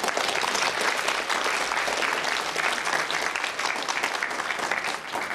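Studio audience applauding, a dense, steady patter of many hands clapping together.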